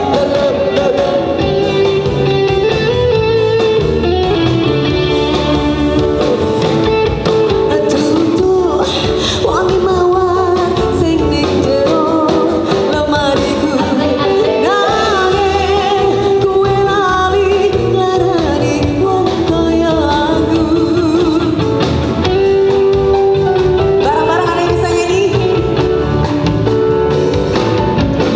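A woman singing live into a microphone, backed by a live band with guitar and drums.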